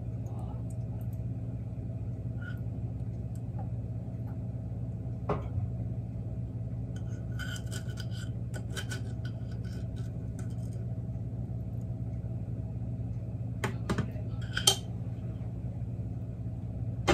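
Caramel sauce being poured from a metal saucepan into a glass jar, with a spoon scraping the pan in the middle and a few light clinks of utensils and glass, over a steady low hum.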